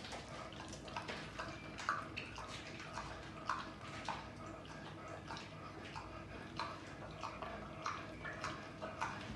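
Minipig eating chunks of food from a steel bowl: wet chewing and mouth smacks, irregular, about one or two a second.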